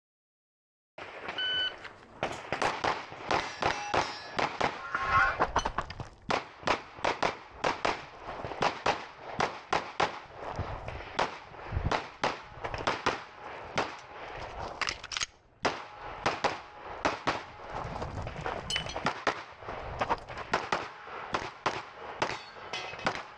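A shot-timer beep, then a Glock 17 Gen 5 9mm pistol fired in quick strings of shots, about two to three a second, with short breaks between strings, the longest about 15 seconds in.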